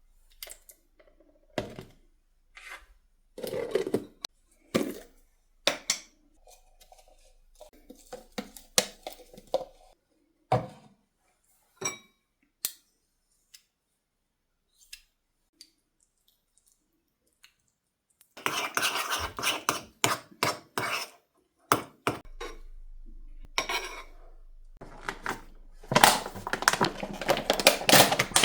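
Dishes and cutlery being handled: a run of separate knocks and clinks, with two longer stretches of clatter, one about two-thirds of the way in and one near the end.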